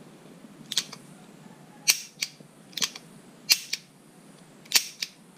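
Smith & Wesson Model 629 .44 Magnum revolver being dry-fired, its action giving five pairs of sharp metallic clicks, about one pair a second. The hammer falls under the mainspring newly re-tensioned by tightening its loose strain screw, the fix for light primer strikes.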